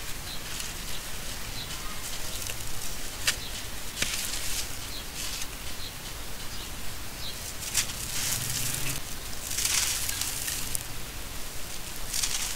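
Dry sand-and-cement lumps being broken apart by hand: crunching and crumbling, with gritty crumbs and dust trickling down. There are a few sharp cracks as chunks snap, and a louder run of sandy crumbling and pouring a little before the end.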